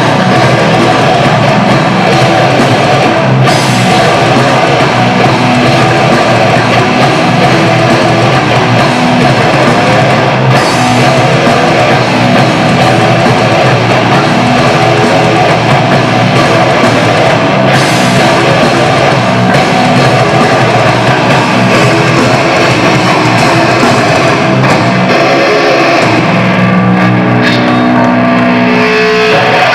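Live heavy metal band playing loud, with distorted guitars and a drum kit pounding throughout. Near the end the drumming thins out and held guitar notes ring.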